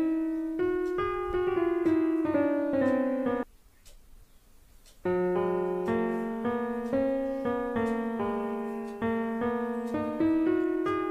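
Background piano music, a run of single notes and chords, that breaks off about three and a half seconds in and starts again about a second and a half later.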